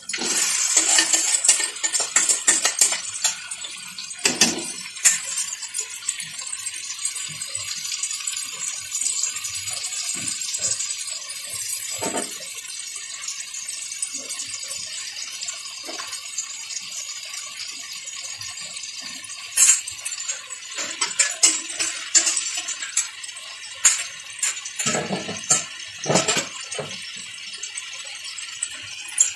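Marinated chicken sizzling as it is tipped into hot oil and onion-tomato masala in a kadai, loudest as it goes in and then settling to a steady sizzle. A metal spoon knocks and scrapes against the pan several times.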